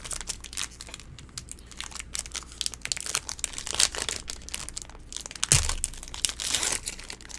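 Foil wrapper of a Magic: The Gathering booster pack crinkling and being torn open by hand, in a run of irregular crackles. A single dull thump, the loudest sound, comes a little past halfway.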